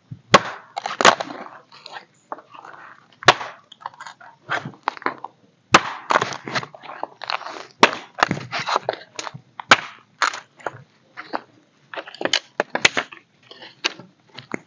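Irregular rustling and crackling of dry leaves, grass and twigs being handled and trampled on a forest floor, broken by several sharp snaps and cracks.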